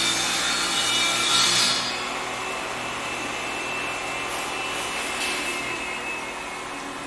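Electric power saw cutting wood, loudest for the first two seconds. Then the saw runs on more quietly, with a thin whine that slowly falls in pitch.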